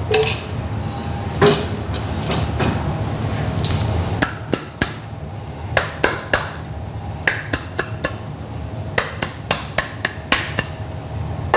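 A metal spoon knocks a few times against an aluminium pot. From about four seconds in, a run of irregular sharp taps follows as a palm strikes the underside of a plate of risotto to spread it flat, over a steady low hum of kitchen ventilation.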